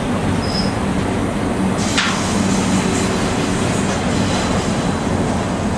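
Double-stack intermodal well cars of a freight train rolling past: a steady rumble of steel wheels on the rails, with one sharp knock about two seconds in.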